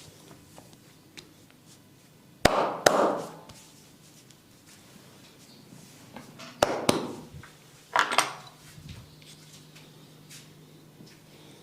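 Sharp hand slaps of a barber's percussive massage, struck in three quick pairs, each hit followed by a brief slapping tail, over a faint steady hum and small quiet clicks.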